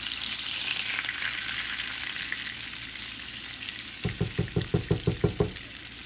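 Butter melting in hot oil, sizzling steadily in a pan, loudest at the start and slowly easing. About four seconds in comes a quick run of about nine knocks, roughly six a second.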